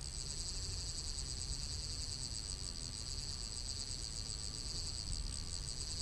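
Insects trilling in a steady, high, continuous buzz over a low rumble.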